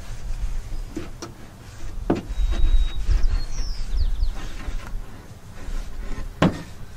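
A rag rubbing over an oak seat frame, with a few sharp wooden knocks as the frame is shifted against a plywood board, over a low rumble.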